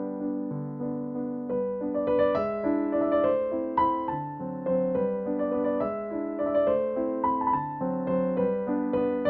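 Background music: an electric piano playing a gentle tune over a repeating chord pattern, the melody coming in higher about two seconds in.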